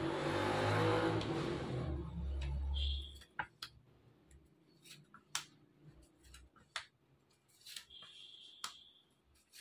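A loud rushing noise with a low hum that cuts off about three seconds in. Then a series of short, sharp clicks and taps as tarot cards are handled and laid down on a cloth-covered table.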